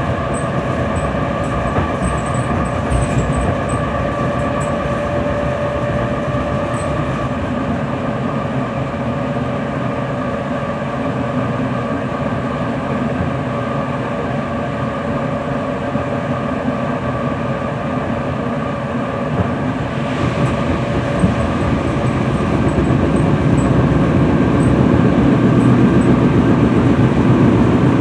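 EN57 electric multiple unit running at speed, heard from inside the carriage: a steady rumble of wheels on track with a steady whine. The rumble grows louder a little over two-thirds of the way through.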